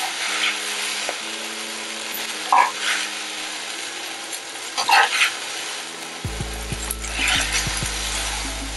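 Fresh rice noodles sizzling in a hot nonstick frying pan as they are stirred and scooped, with a louder scrape of the utensil against the pan about every two and a half seconds.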